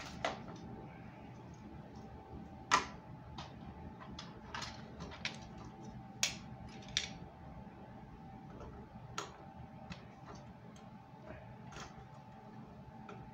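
Irregular light clicks and taps of hard plastic as a 1/16-scale toy RC car is handled and worked on in the hands, with the sharpest clicks about a third of the way in and near the middle. A faint steady hum runs underneath.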